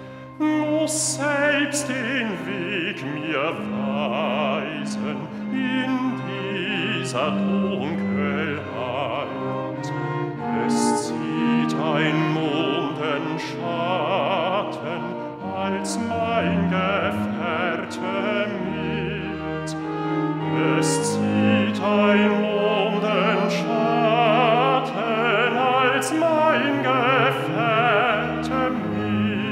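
A string quartet playing a slow classical passage, the cello holding long low notes under the wavering vibrato of the violins.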